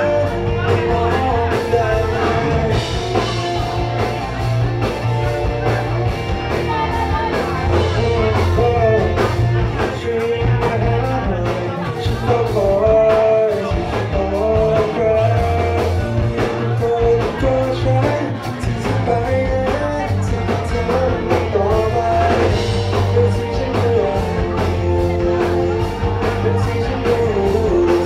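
Live band playing a rock song, a singer's held melody over a steady drum beat and bass.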